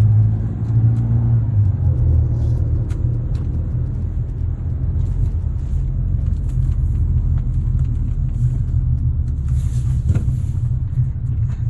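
Car engine and tyre rumble heard inside the cabin as the car drives slowly: a steady low rumble.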